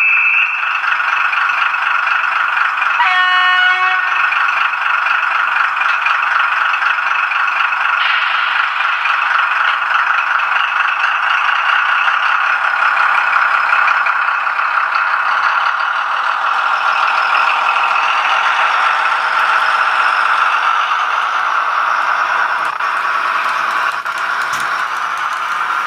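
TT-scale model train running over the layout's track, a steady rattle and clatter of wheels on rail. About three seconds in, a short pitched hoot sounds for under a second.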